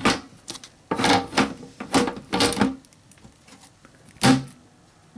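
Tempered-glass side panel being handled and fitted onto a PC case: several knocks and scrapes of glass against the metal case, the loudest about four seconds in.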